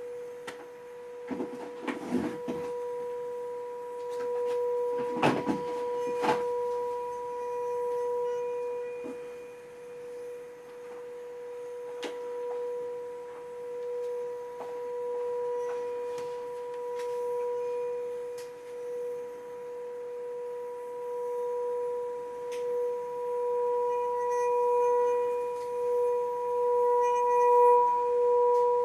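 Tibetan singing bowl sung by rubbing a wooden striker around its rim: one steady ringing tone with an overtone an octave above, wavering in loudness and swelling near the end. The stick knocks against the metal a few times in the first six seconds.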